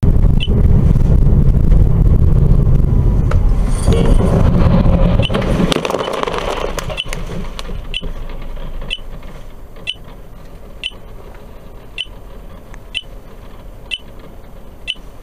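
Dashcam recording from inside a car: loud road and engine rumble as the car slows, with a few sharp knocks midway while a car ahead crashes off the road and overturns, and dirt is thrown onto the recording car. The rumble fades as the car comes to a stop, and then a short high beep repeats about once a second.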